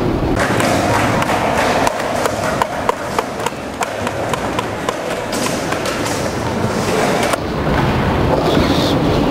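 Skateboards rolling and clacking on a concrete skatepark floor: many short sharp clacks through the middle stretch, over a steady low rumble.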